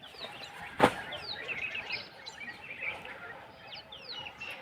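Small birds chirping, many short downward-sliding notes overlapping throughout, with one sharp click about a second in.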